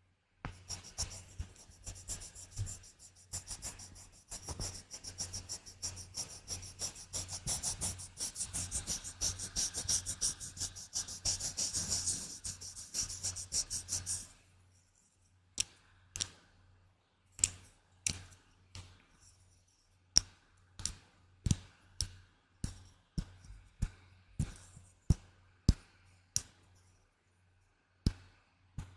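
ASMR trigger sounds: about fourteen seconds of a fast, dense run of crisp scratching and tapping strokes, then slower single sharp taps, about one or two a second.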